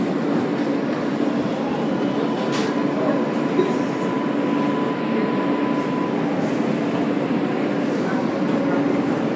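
Interior of an R143 subway car pulling out of an elevated station: a steady rumble of the wheels and running gear on the track, with a faint steady whine for a few seconds in the middle.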